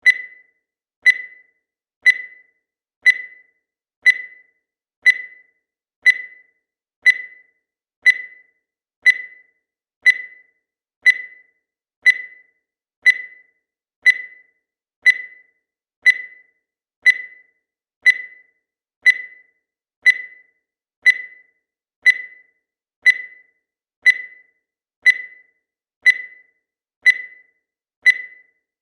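Digital timer beep sounding once every second to mark the countdown: a short, high-pitched beep that fades quickly, with silence between beeps.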